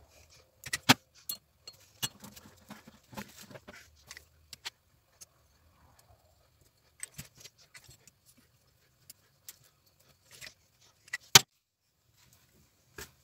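Scattered sharp metallic clicks and clinks as a lever-type valve spring compressor is worked on the valve springs of a small diesel walk-behind tractor's cylinder head and the valve collets are fitted. The loudest single clack comes near the end.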